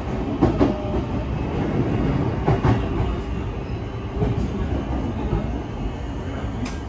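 Running noise inside a JR East E131 series 80 subseries electric train under way: a steady low rumble from wheels on rail, with a few short clacks as the wheels pass over rail joints.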